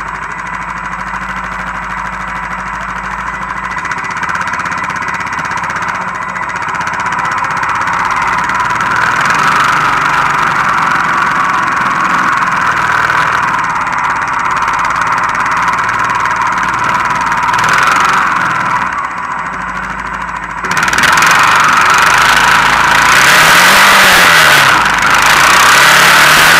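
Honda Foreman 450 ES ATV engine running steadily under load while towing two sleds. About twenty seconds in it gets suddenly louder, with a rushing noise added across the top.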